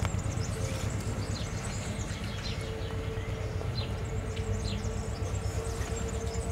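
Double-deck passenger train rolling away along the track: a low, rapidly fluttering rumble with a steady hum under it. Birds chirp briefly many times over it.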